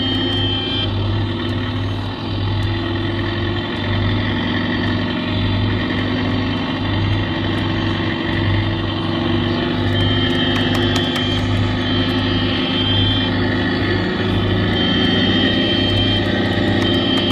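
Amutec coin-operated tractor kiddie ride running: a steady mechanical hum with a low throb that pulses about once a second, and a thin high tone coming and going.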